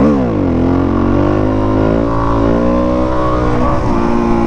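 Suzuki DR-Z400 single-cylinder four-stroke engine: the revs fall sharply right at the start, then it runs on steadily in gear with small rises and dips in pitch, easing down slightly near the end.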